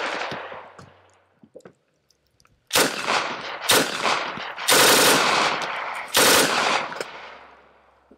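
Short full-auto bursts from a PM63 Rak, an open-bolt 9×18mm Makarov machine pistol with a reciprocating slide. Each burst is followed by a long echo. The first second is the fading echo of an earlier burst, then several bursts come in quick succession from about three seconds in, the longest near the middle.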